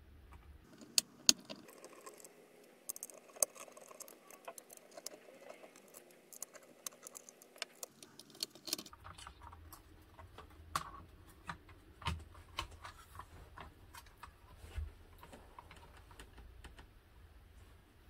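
Scattered small clicks, taps and light rattles of a precision screwdriver loosening screws on a ZX Spectrum Next's circuit board, followed by the board and plastic case being handled.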